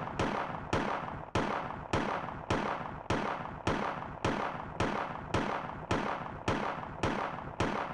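Smith & Wesson Sigma pistol firing a steady string of about fourteen shots, a little under two a second, each with a short echoing tail.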